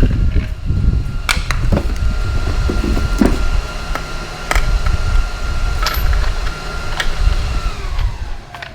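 A shop machine running with a low rumble and a steady whine that winds down and falls in pitch near the end, as if switched off. Several sharp knocks sound over it.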